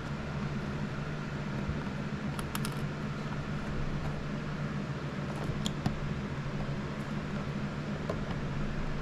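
Steady low hum with a few sharp, light clicks of small plastic lock clips being handled and pushed onto the filament-tube couplers of a 3D-printer filament buffer.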